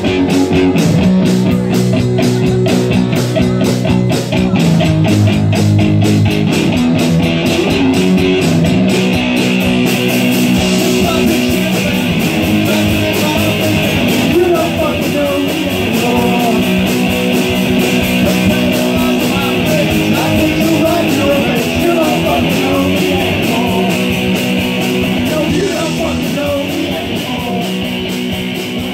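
Punk band playing live: electric guitars and drums at a fast, steady beat, with a woman singing. About ten seconds in, the sound gets brighter and fuller, as if cymbals crash in.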